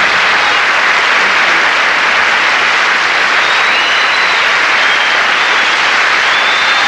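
Large studio audience applauding loudly and steadily, a sustained ovation.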